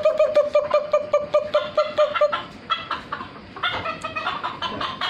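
Chickens clucking in a fast, even run of short calls, about six a second. The calls break off a little past two seconds in and start again about a second later.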